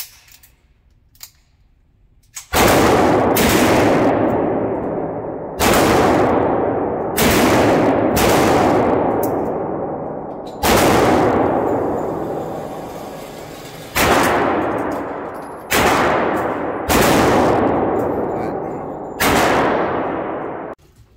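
A string of eight .357 Magnum revolver shots, irregularly spaced one to three and a half seconds apart, each followed by a long echoing decay. The sound cuts off abruptly after the last shot's tail, near the end.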